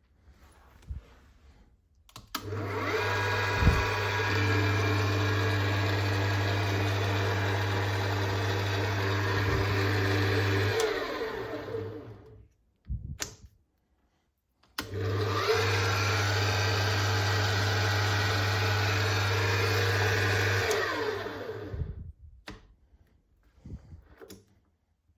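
Emco FB2 milling attachment's single-phase motor and oil-bath geared head running, started twice. Each run holds steady for about eight seconds, then is switched off and spins down, its pitch falling away.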